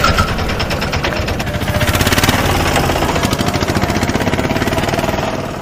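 A steady, rapidly pulsing engine-like rumble that fades out near the end.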